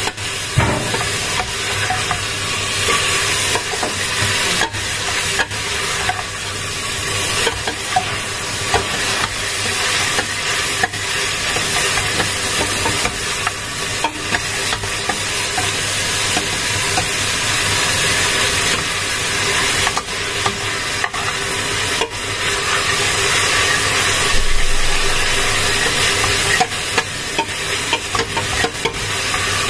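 Food sizzling steadily in hot oil in a frying pan, with occasional sharp clicks of a utensil against the pan as it is stirred.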